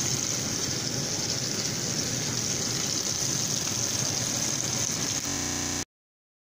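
Rack of lamb sizzling steadily as it sears in a cast iron skillet. It breaks up briefly and then cuts off suddenly near the end.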